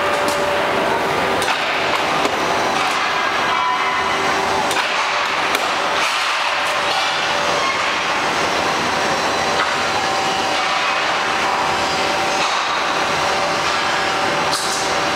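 CNC angle-steel punching and shearing line running: steady hydraulic machine noise with a faint steady whine, broken by sharp metallic knocks from the punching heads at irregular intervals of about one to several seconds.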